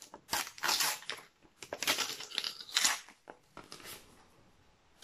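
A sticker packet's wrapper being torn open and crinkled by hand, in four short ripping, rustling bursts over the first four seconds.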